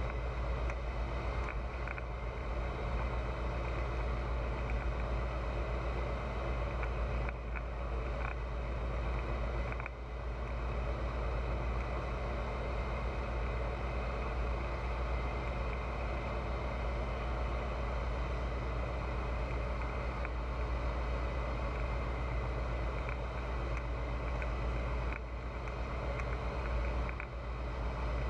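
Steady drone of a Pipistrel Virus light aircraft's Rotax 912 four-cylinder engine and propeller, heard from the cockpit, dipping briefly in loudness a few times.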